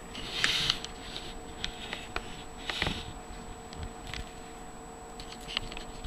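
Small clicks and scrapes of a thermoelectric (Peltier) cooling module being pried apart by hand and its finned aluminium heat sink handled. Two short rubbing swishes stand out, one near the start and one about three seconds in, over a faint steady hum.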